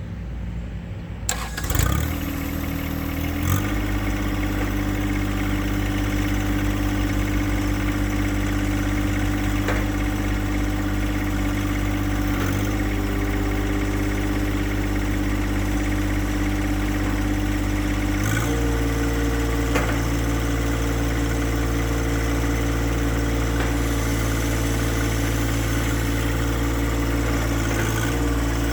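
John Deere 1025R compact tractor's three-cylinder Yanmar diesel starting about a second in and settling into a steady idle, then stepping up to a higher, steady engine speed a little past halfway.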